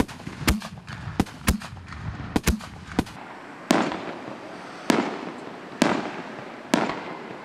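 Aerial fireworks fired in a volley from a ground launch rack. A quick run of sharp bangs comes over the first three seconds, then single louder bangs follow about once a second, each trailing off.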